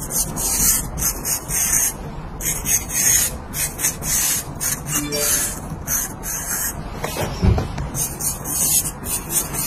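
Straight razor scraping short stubble off a lathered scalp: a quick series of short rasping strokes, about two a second, with a brief lull and a single low thump about seven and a half seconds in.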